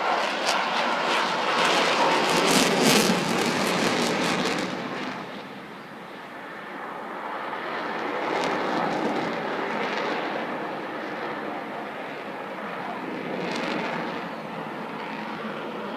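RAF Eurofighter Typhoon's twin EJ200 jet engines roaring through a display pass, with a rapid crackle over the first few seconds. The roar fades about six seconds in, then swells again twice as the jet manoeuvres.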